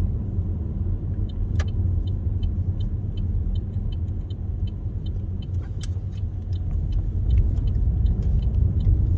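Car cabin road noise while driving: a steady low rumble of engine and tyres, with a light regular ticking about three times a second from about a second in.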